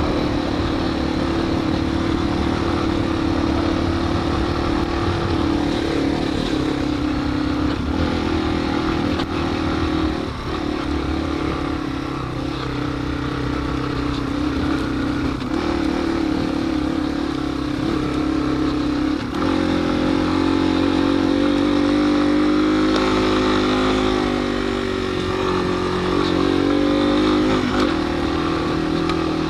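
Yamaha TW200's air-cooled single-cylinder four-stroke engine running steadily while riding. After about twenty seconds its note rises and wavers with the throttle, over a steady low rumble.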